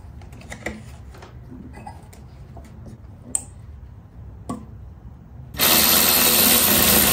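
A few light clicks and knocks of parts being handled, then a power tool starts suddenly about five and a half seconds in and runs loud and steady.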